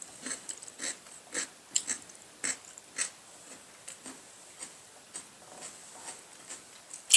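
Mealtime sounds at a table: chewing and lip smacks mixed with light clicks of chopsticks, coming in short, irregular bursts about every half second.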